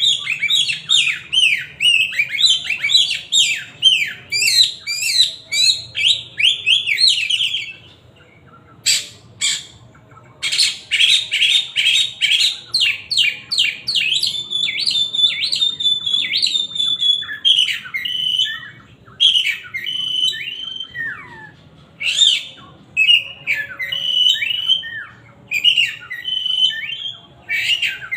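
Oriental magpie-robin (kacer) singing loudly: fast runs of repeated, downward-sweeping whistled notes, broken about eight seconds in by a short pause with a couple of sharp clicks. Another fast run follows, then more varied whistles and phrases with short gaps between them.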